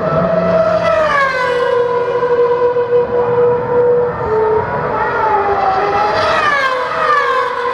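Formula 1 cars' 2.4-litre V8 engines screaming at high revs past the pit straight, one long pass after another. The pitch falls as a car goes by about a second in and again about six seconds in.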